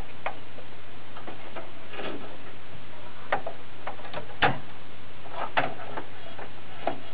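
Scattered light plastic clicks and taps as a RAM stick is handled against the memory slots and their retaining clips, about six in all, the sharpest about four and a half seconds in, over a steady hiss.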